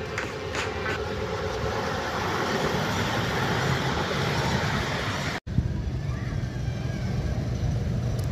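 Miniature ride-on railway train running along the track, heard from aboard the carriages: a steady rushing rumble of wheels on rail. About five seconds in it cuts off abruptly, and a lower, heavier steady rumble follows.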